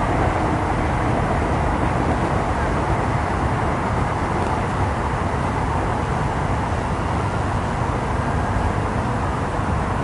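City street ambience: a steady hum of traffic with no single sound standing out.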